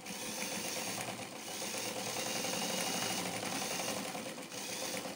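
Electric sewing machine running steadily as it sews a loose stitch through trouser fabric, easing off near the end.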